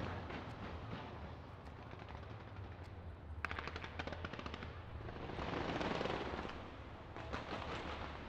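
Fireworks crackling in rapid runs of pops, like machine-gun fire, with a louder swell of noise about six seconds in.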